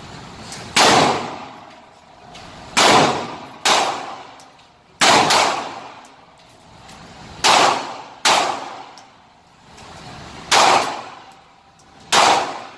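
A Turkish-made 9mm semi-automatic pistol firing single shots, about eight at uneven intervals of one to two seconds. Each loud report rings on in the indoor range.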